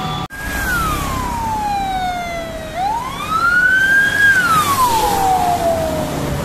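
Ambulance siren on a slow wail: the tone falls, rises and falls again, each sweep taking about two seconds, over engine and road noise. It cuts in suddenly just after the start.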